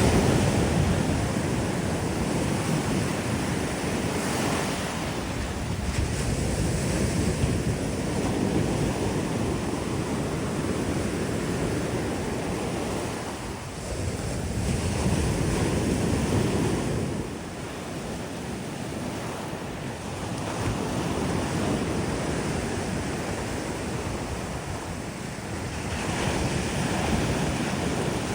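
Ocean surf breaking on a sandy beach in a continuous wash, swelling and easing as each wave comes in, with wind buffeting the microphone.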